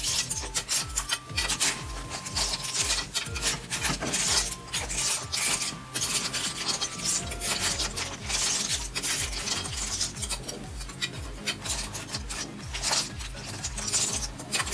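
Sea snail shells being stirred in a metal pan with a spatula: the shells clatter and scrape against the pan and each other in a continuous, irregular rasping.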